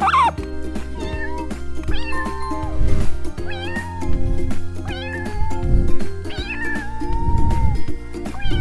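A cat meowing again and again over background music, with one longer drawn-out meow near the end.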